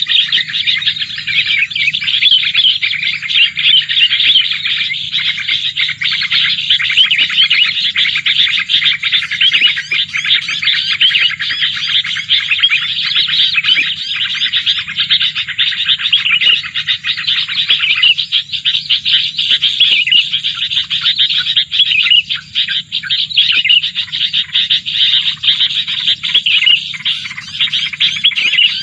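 Small birds chirping in a dense, unbroken stream of quick, high notes, loud and continuous, over a faint low hum.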